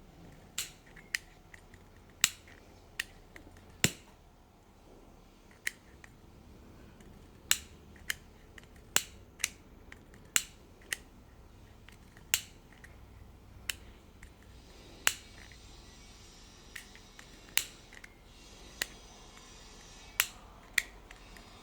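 Piezo igniter of a gas soldering iron clicking over and over at an uneven pace, roughly once a second, failing to light the flame.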